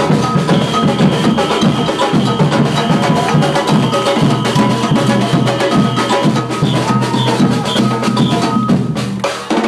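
Samba drum ensemble playing a dense, driving rhythm, many drum strikes a second over a steady deep bass-drum pulse.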